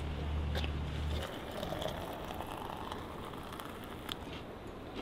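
A steady low hum for about the first second, then hot water trickling from a camp pot into a stainless steel Stanley thermos, with a few small clicks.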